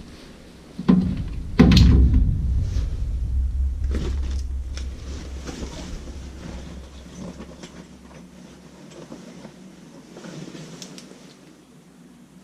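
Two heavy thumps less than a second apart, followed by a low rumble that fades away over several seconds, with scattered knocks and clicks.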